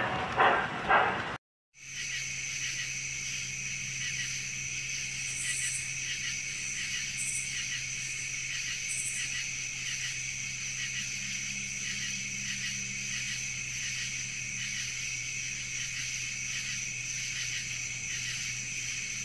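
A short rhythmic pulsing cuts off about a second and a half in. After a brief gap comes a steady ambient track with a continuous high, fluttering trill over a low hum.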